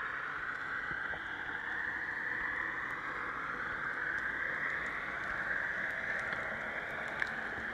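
Underwater ambience picked up by the camera: a steady hiss of the sea with a few faint scattered clicks, and one sharper click near the end.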